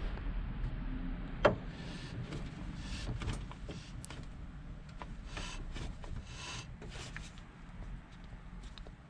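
Car on the move: a steady low rumble with scattered clicks and knocks, one sharp knock about one and a half seconds in.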